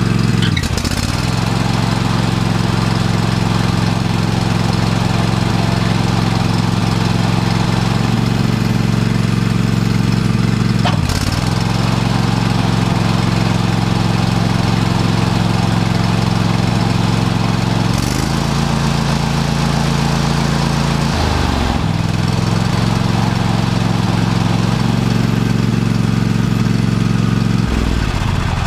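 Riding mower's 20 HP Kohler V-twin engine running on a test run of its newly replaced deck spindle and belt. It runs steadily, dips briefly twice, changes tone for a few seconds past the middle, and winds down at the very end.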